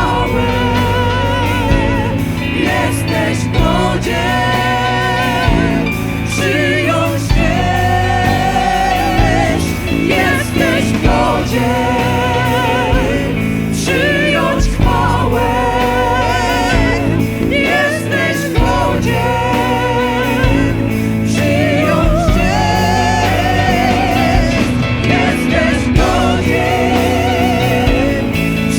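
Live spontaneous worship music: singing voices hold long notes with vibrato over a band's sustained chords, bass and regular drum hits.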